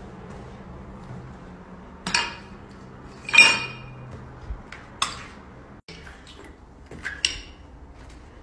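Loose debris clinking and clattering underfoot on rubble-strewn stairs: four separate clatters, the loudest about three and a half seconds in with a short ringing note.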